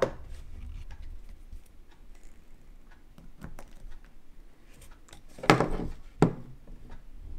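Handling clicks and knocks as meter test leads are held on a run capacitor's spade terminals and a clamp meter is picked up off the bench, with a louder clatter about five and a half seconds in and a sharp knock just after.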